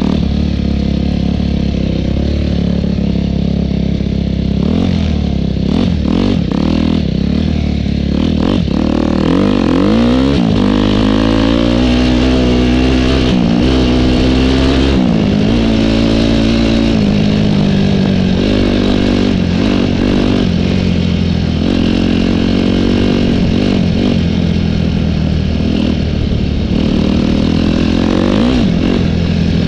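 Dirt bike engine heard close up from on the bike, revving up and down repeatedly as the rider works the throttle and gears under load. Clattering knocks from the rough ground over the first several seconds.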